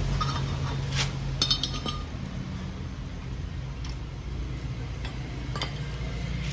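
Metal hand tools clinking and knocking against each other: a sharp click about a second in, then a quick run of ringing clinks, and a few fainter clicks later, over a steady low hum.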